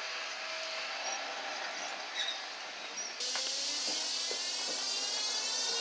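Quiet trackside sound as a tram approaches, then, about three seconds in, the cab of a heritage tram, where the traction motors and gearing give a high whine that slowly rises in pitch as the tram picks up speed.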